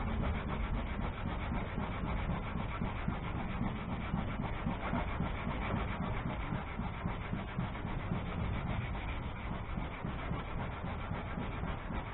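Hand sanding of a fiberglass boat deck's gelcoat and resin patch, a sanding pad rubbed back and forth under the palm in quick, continuous strokes.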